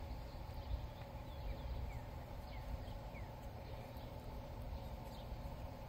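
Quiet outdoor background with a low rumble, a faint steady hum and scattered short, high, falling chirps from birds.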